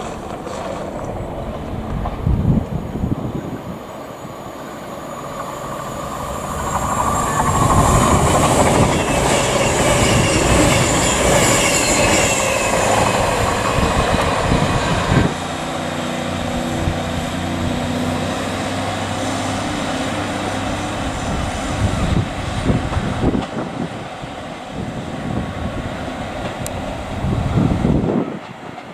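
Cross Country Voyager diesel multiple unit approaching and passing, its engine and wheel-on-rail noise rising to the loudest point about halfway through. After a sudden change, a second diesel multiple unit, a Class 150, runs its engine with a steady low hum of several tones.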